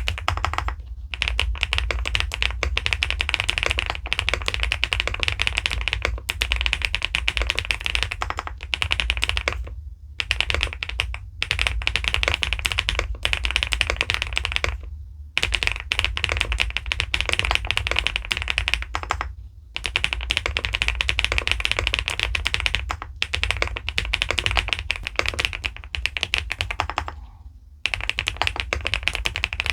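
Fast continuous typing on an SPM PL87W mechanical keyboard with pebble-shaped keycaps, a rapid run of key clacks. The typing stops briefly every few seconds.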